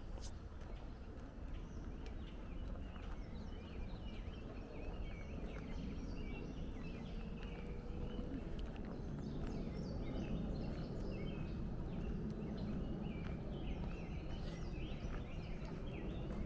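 A chorus of small songbirds chirping and calling, many short notes overlapping, over a steady low background noise.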